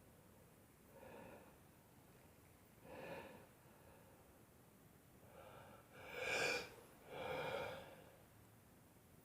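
A man's sharp, breathy gasps at intervals of about two seconds, the two loudest coming close together near the end.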